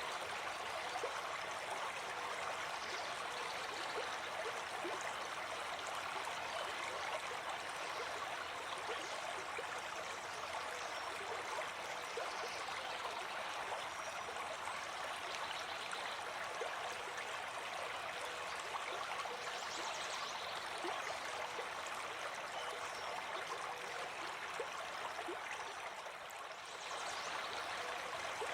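Running water flowing steadily, a continuous rushing with small pitched gurgles scattered through it. It dips slightly for a moment near the end.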